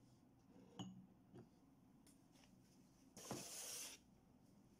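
A faint glass clink with a brief ring about a second in, then the scrape of a clear plastic drawer organiser sliding across a wooden desk for about a second.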